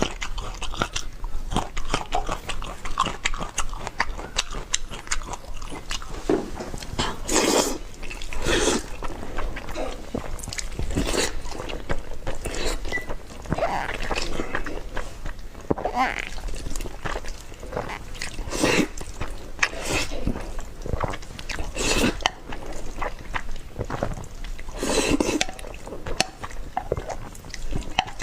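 A person eating spicy instant noodles close to the microphone: steady wet chewing and mouth clicks, with louder slurps every few seconds.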